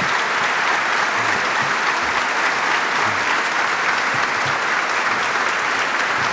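A large audience applauding: dense, steady clapping with no let-up.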